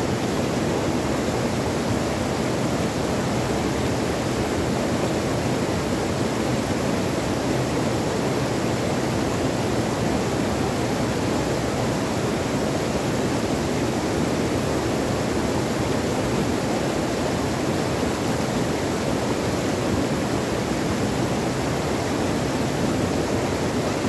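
Stream tumbling over low rock cascades and around boulders: a steady, unbroken rush of water.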